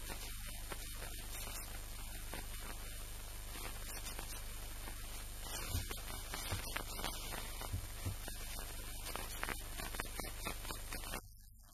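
A steady low hum under a constant hiss, with a few soft low thumps in the middle; it cuts off suddenly near the end.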